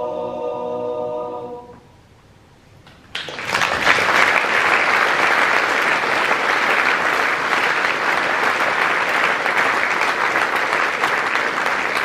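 A men's yodel choir holds the closing chord of the song, which dies away about two seconds in. After a short hush, audience applause breaks out and goes on steadily.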